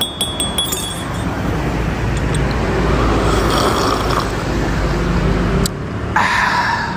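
Roadside traffic sound effect: a steady rumble of passing vehicles. Near the start, a few sharp clinks of a cup set down on its saucer. The traffic stops about two thirds of the way in and is followed by a brief, different sound near the end.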